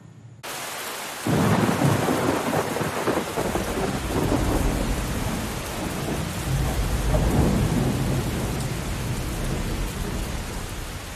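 A heavy tropical downpour that starts abruptly, with a deep rumble of thunder coming in about a second later and slowly dying away under the steady rain.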